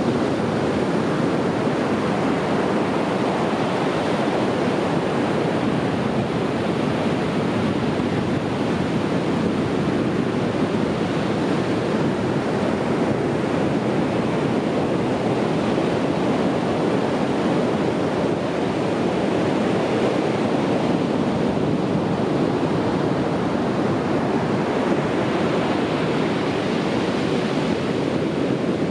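Sea waves breaking and washing on a beach, a steady dense rush of surf with gentle swells in level and no distinct single crashes.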